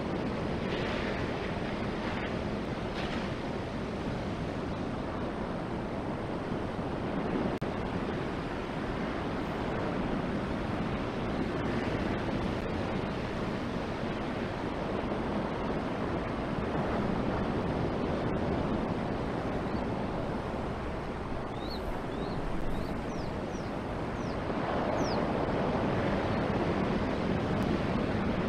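Ocean surf breaking on the shore, with wind buffeting the microphone.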